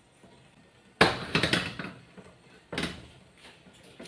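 Empty carbon-steel wok set down on a gas stove's burner grate: a sharp metal clunk about a second in, followed by a short rattle, then a second, shorter knock near three seconds.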